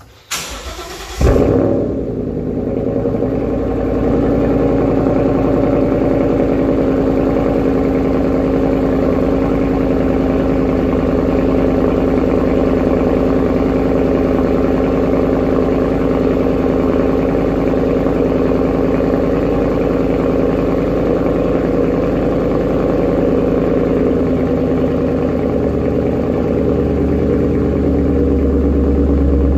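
2014 Ford Mustang GT's 5.0 Coyote V8, fitted with a Roush X-pipe exhaust, cranking and firing up, loudest as it catches about a second in, then settling into a steady, loud idle through the exhaust.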